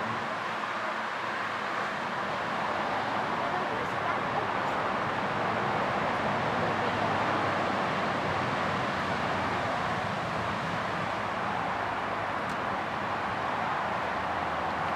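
Steady background noise, an even hiss with no distinct events.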